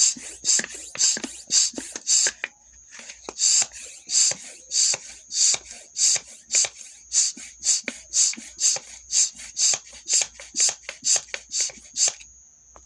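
Hand bicycle pump worked in quick, regular strokes, each stroke a short rush of air, about two to three a second, with a brief pause about two and a half seconds in and a stop near the end.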